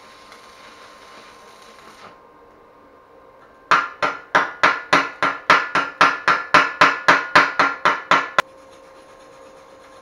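Stick-welding arc from a 130 A inverter welder crackling and hissing, cutting off about two seconds in. A little later a hammer strikes the freshly welded steel about eighteen times, roughly four blows a second, each blow ringing metallically.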